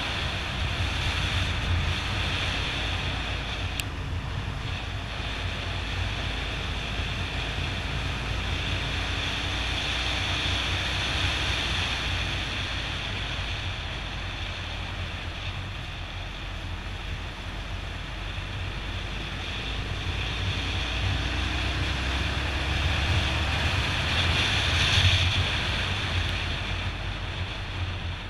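Wind buffeting the microphone of a moving motorbike, with the Yamaha XT 600E's single-cylinder four-stroke engine running under it. The rush grows louder for a moment near the end.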